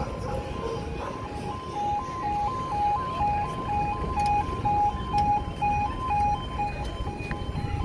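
UK level crossing audible warning alarm sounding its two-tone 'yodel', switching between a lower and a higher pitch about twice a second, as the barriers lower to close the road for a train.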